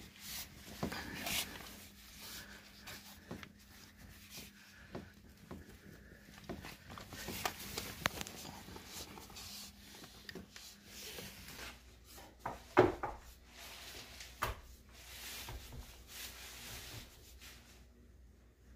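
Hands rubbing and pressing a rubber door weather strip onto the metal flange of the door opening, with scattered light knocks and one sharper knock about two-thirds of the way through.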